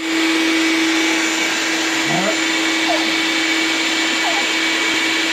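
Steady, loud whirring of a motor-driven appliance: an even hiss with a constant low hum and a thin high whine over it.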